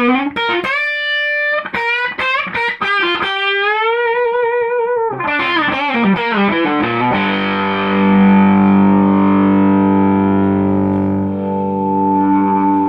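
Electric guitar with DiMarzio humbucker pickups played straight into a single-ended EL84 valve amp at full volume with the tone all the way up, heard through its 12-inch speaker. Single notes with bends and vibrato for about seven seconds, then one chord struck and left ringing.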